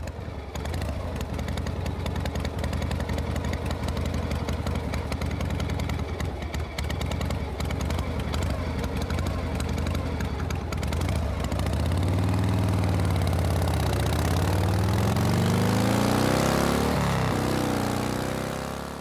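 Motorcycle engine idling steadily, then revved up and down in several swells during the last seven seconds or so.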